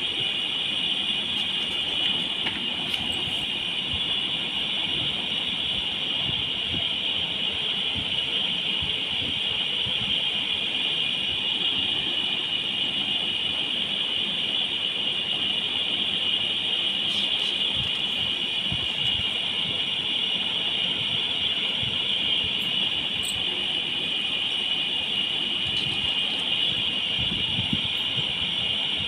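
Steady high-pitched hiss that does not change, with a few faint clicks.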